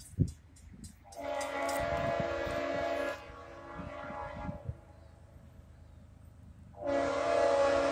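Diesel locomotive air horn on an approaching CSX freight train sounding two long blasts, a two-second blast about a second in and a second long blast starting near the end: the long blasts of the warning signal for the road crossing.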